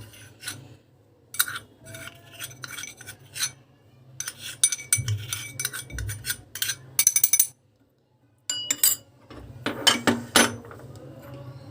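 A spoon scraping and clinking against a small mortar and a bowl as a ground almond and white pepper paste is scooped out, in irregular bursts of clinks and scrapes with a short pause about seven and a half seconds in.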